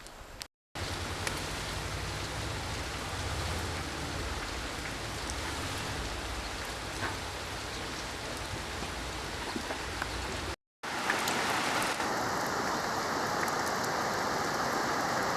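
Steady rain falling and pattering on surfaces, in two clips separated by a brief silent cut about ten seconds in; the second clip is louder, and the first has a low rumble under the rain.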